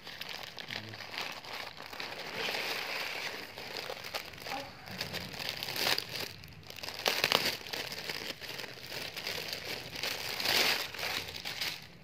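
Plastic packaging, a courier mailer bag and the clear plastic wrap of a garment, crinkling and rustling as hands pull it open and handle it. The crinkling runs irregularly throughout, with louder crackles about seven and ten seconds in.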